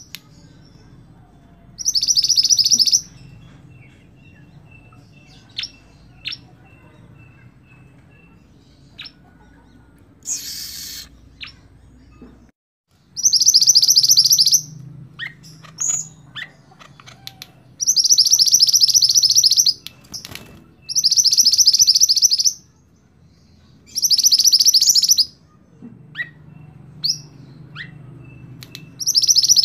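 Mantenan (minivet) singing: loud, high, rapid trills of one to two seconds, repeated about six times with pauses of a few seconds between, and a few short chirps in the gaps.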